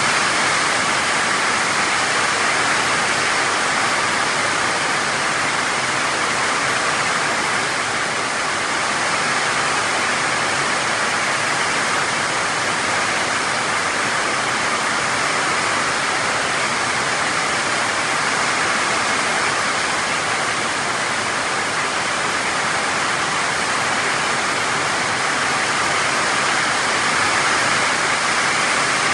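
Heavy tropical downpour: an even, loud hiss of rain pouring down without letup.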